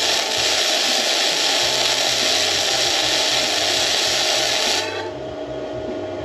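Flux-core arc welding with a Hynade MTS155 FX welder: the arc's steady crackling hiss, which cuts off sharply near the end as the trigger is released, over a steady machine hum. The welder judges he held this bead a little too long on the thin tubing.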